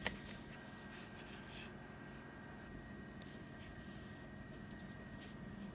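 Faint handling sounds of eyeshadow palettes being moved and slid against a clear plastic ruler: a sharp click at the start, then a few soft scrapes. A faint steady high tone runs underneath.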